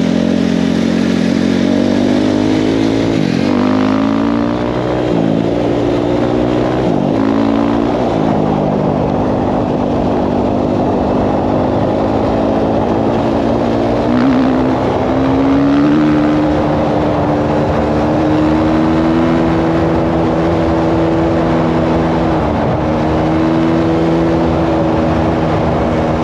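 2019 KTM 450 four-stroke dirt bike engine running under way at a steady pace, its pitch dipping briefly and picking back up several times as the rider works the throttle and gears.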